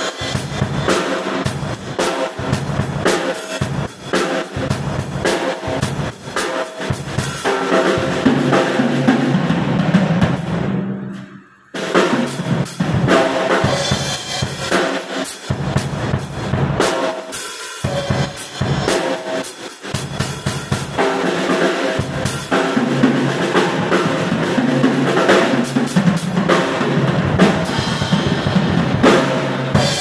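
MW acoustic drum kit played in a sound check, with kick drum, snare, toms and cymbals. The rack and floor toms have freshly fitted new heads, tuned in. The playing stops briefly about twelve seconds in, then picks up again.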